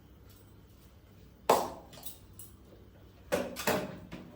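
Cookware being handled and set down on a hard kitchen surface: one sharp clank about a second and a half in that rings briefly, then two quicker knocks near the end.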